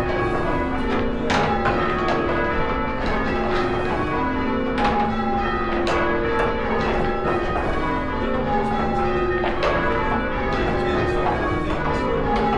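Six church bells rung in sequence, change-ringing style: a steady run of strikes, several a second, each bell's note ringing on under the next.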